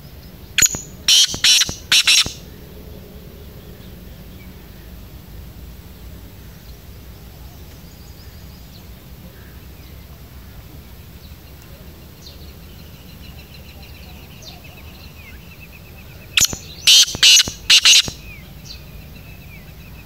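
Black francolin calling twice, about fifteen seconds apart. Each call is a short note followed by three loud, harsh notes, with faint rapid chirping in the background between the calls.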